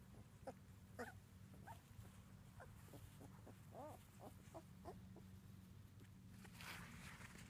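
Two-week-old Labrador retriever puppies squeaking faintly: a string of about eight short, high squeaks over the first five seconds, then a brief rustle near the end, over a low steady hum.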